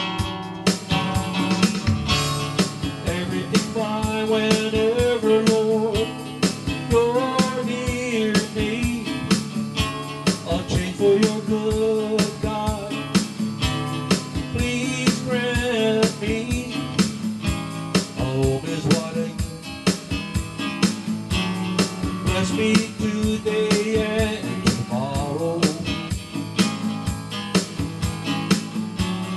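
Background music: a song with a singing voice over guitar and a steady beat.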